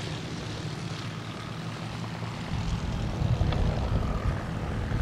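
Propeller engine of an Earthstar Soaring Gull 2000 ultralight running as the plane flies low and rolls out on a grass strip, a steady drone that grows louder about halfway through.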